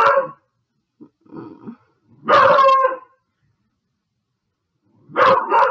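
A pet dog barking in separate bursts: a faint bark about a second and a half in, a louder, longer bark at about two and a half seconds, and two quick barks near the end.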